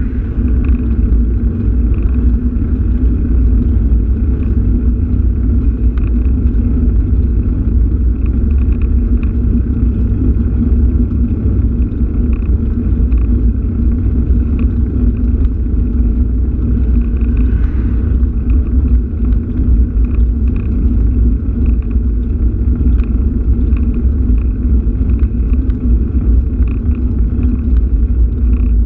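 Steady, loud low rumble of wind buffeting and road noise on an action camera mounted low on a vehicle moving along a road, with a steady low hum underneath.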